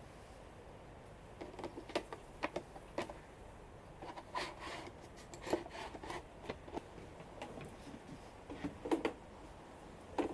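Irregular knocks, clicks and brief scrapes of a chainsaw being set into its carrying case and the case being handled; it starts about a second and a half in, with a cluster of louder knocks near the end.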